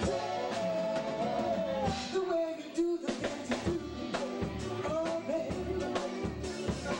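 Live band playing: a man and women singing into microphones over a drum kit and keyboard, with a short break in the music about three seconds in.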